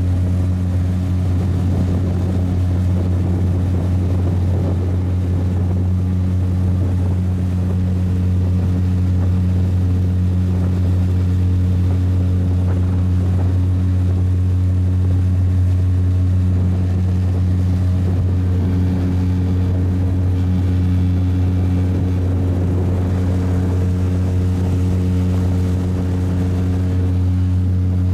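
Motorboat engine running at a steady speed, a constant low drone with no change in pitch.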